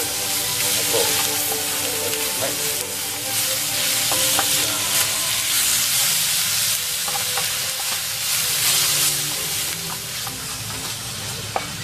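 Eggplant, green pepper and beef sizzling in a hot frying pan while a wooden spatula stirs and turns them, with light scrapes and taps of the spatula against the pan.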